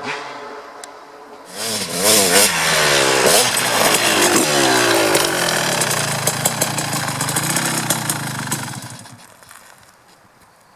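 Kawasaki KX250 two-stroke dirt bike engine with an FMF Gnarly expansion chamber and Pro Circuit Shorty silencer, revved in quick rising and falling blips about two seconds in, then held at a steadier high note before dying away near the end.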